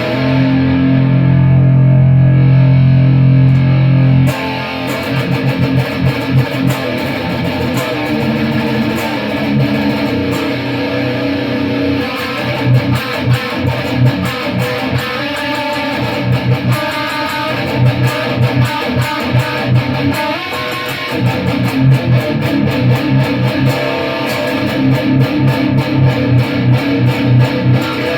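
Electric guitar played through an EVH 5150III 15-watt LBX amp head into a Mesa Boogie 1x12 cabinet with a Celestion Vintage 30 speaker, picked up by a microphone on the cabinet. A chord rings out for about four seconds, then fast rhythmic riffing with short, chopped notes.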